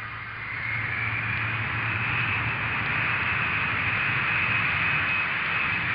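Aircraft engine running with a steady rush, a high whine and a low hum, growing louder over the first couple of seconds and then holding.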